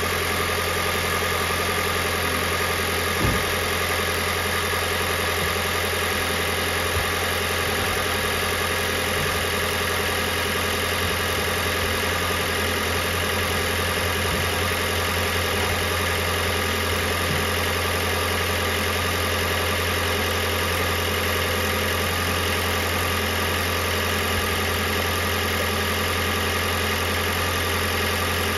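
Toyota Prius's petrol engine idling steadily, held running in maintenance mode to circulate and warm the coolant while the cooling system is being bled. A single short knock about three seconds in.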